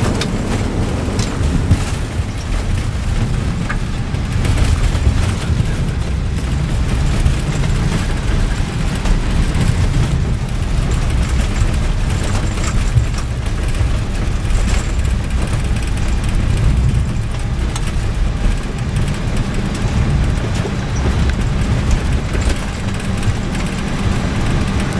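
Steady low rumble inside the cockpit of an Airbus A319-112 rolling out on the runway after landing: engine and wheel noise as the airliner decelerates.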